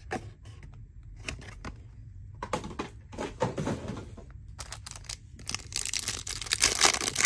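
Scattered clicks and taps of packaging being handled, then, about six seconds in, a dense crinkling and tearing as a trading card pack wrapper is torn open.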